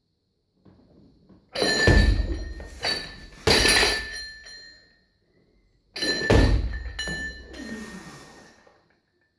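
Loaded Olympic barbell clanking through two clean reps, about a second and a half and about six seconds in. Each rep is a few loud clanks with metallic ringing as the plates and collars rattle on the sleeves while the bar is pulled from the floor, caught at the shoulders and lowered.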